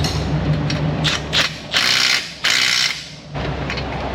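Ratchet wrench tightening the nut on a new control arm bolt, in two short bursts of rapid clicking.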